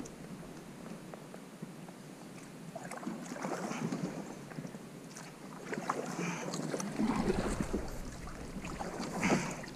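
Kayak paddles dipping and splashing in creek water in uneven strokes, the loudest near the end.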